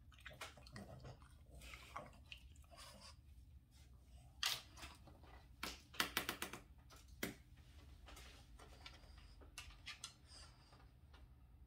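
Faint crackling rustles and clicks of sheets of paper being handled on a wooden tabletop. They come in short clusters, loudest about four and a half and six seconds in.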